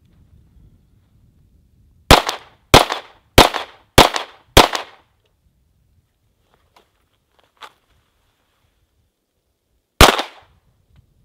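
Five pistol shots from a stainless Ruger SR1911, evenly spaced about 0.6 s apart, then after a pause a single shot from a second pistol about ten seconds in.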